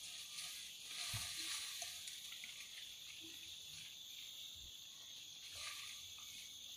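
Faint, steady high-pitched insect chorus in a bamboo forest, with a few soft low thumps.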